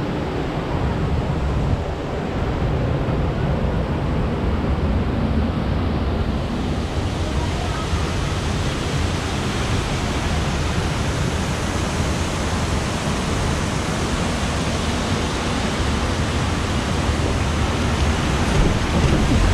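Steady rush of churning water around a river-rapids ride raft, a dense hiss with a low rumble that grows brighter about six seconds in.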